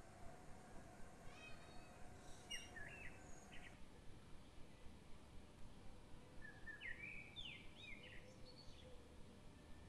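Small birds chirping faintly in two short bouts of quick rising and falling calls, over a low steady background hum.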